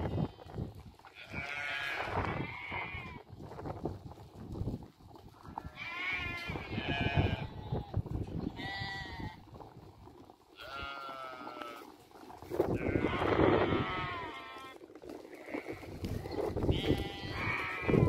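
A flock of young Harri lambs bleating, with calls coming every couple of seconds and often overlapping.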